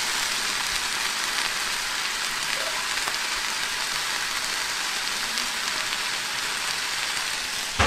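Food sizzling steadily in a frying pan: a constant hiss with light crackles.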